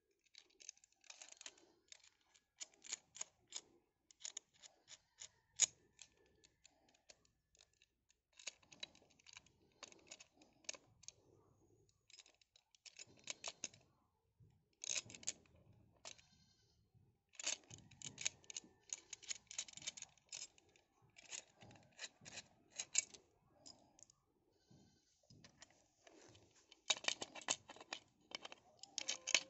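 Light clicks and clinks of metal parts knocking together in the hands as a metal chainsaw bracket is fitted onto an electric angle grinder, coming in irregular clusters with short pauses.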